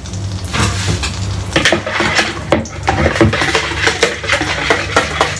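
Utensil clinking rapidly against a bowl, several strikes a second, as eggs are whisked with their seasoning.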